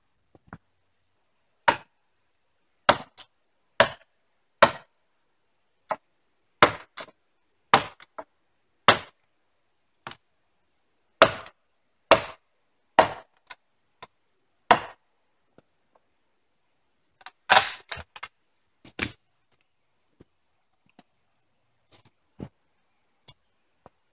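Machete chopping wood: a series of sharp strikes, about one a second, with a quicker run of knocks about two thirds of the way through and a few faint taps near the end.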